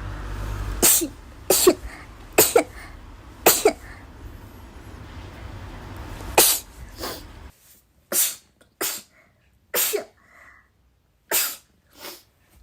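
A woman sneezing over and over, about ten short sharp sneezes, some coming in quick pairs. A low steady hum sits under the first part and stops abruptly about seven and a half seconds in.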